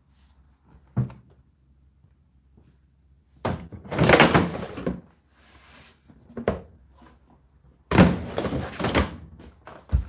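Indesit IDC8T3 condenser tumble dryer mid-cycle: laundry tumbling in the drum, with loud irregular thuds and clatters as the load drops, over a low steady motor hum.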